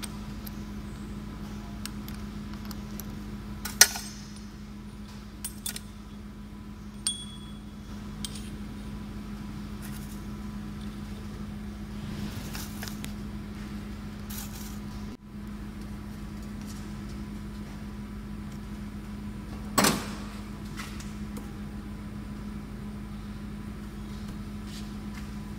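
Metal clinks and knocks as a parting-off tool is set and clamped in a lathe's four-way tool post: a few sharp clanks, the loudest about four seconds in and again near twenty seconds, over a steady low machine hum.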